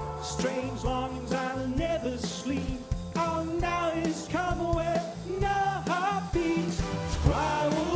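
Live new wave band performance: a man's lead vocals over drums, bass, electric guitar and synthesizer.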